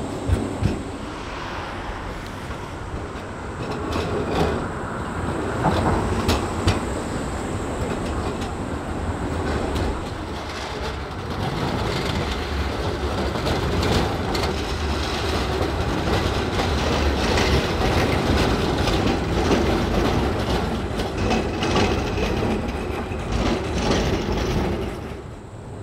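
Škoda 15T low-floor trams running on city street track, wheels clattering over rail joints and points with a steady rumble. It grows louder about halfway through and cuts off abruptly near the end.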